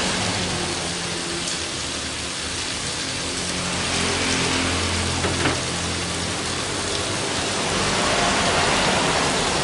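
A steady hissing noise, even in level throughout, with a faint low hum beneath it.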